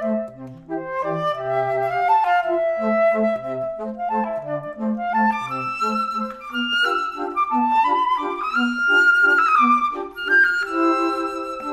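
Background music: a flute-like melody over a repeating bass line.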